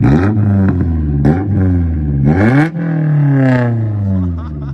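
Honda S2000's four-cylinder engine revved through a custom single-exit exhaust, blipped several times. The last and highest rev comes about two and a half seconds in and then falls slowly back toward idle. The exhaust is loud, louder than its owner wanted.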